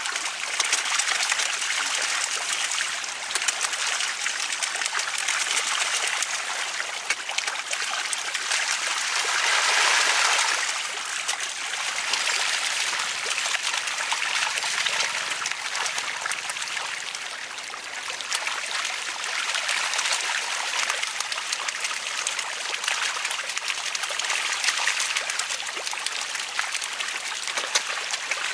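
Many fish splashing and churning at the water surface as they feed in a frenzy, a steady crackling wash of small splashes that swells louder about ten seconds in.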